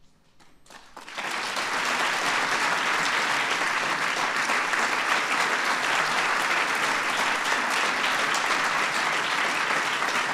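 Audience applauding, starting about a second in and holding steady and dense.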